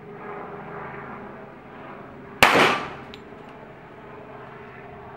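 A single shot from a Glock 21 pistol firing a 230-grain .45 ACP handload: one sharp, very loud report about two seconds in that dies away within half a second, followed by two faint ticks.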